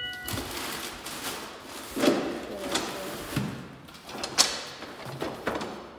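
Parcels being handled at a front door: rustling of plastic-wrapped cardboard boxes with a door and several sharp knocks, the loudest about two seconds and four seconds in. A short electronic beep sounds right at the start.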